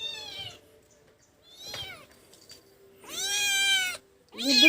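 Domestic cat meowing several times: a short meow about two seconds in, then a longer, louder one about three seconds in, with another beginning at the very end.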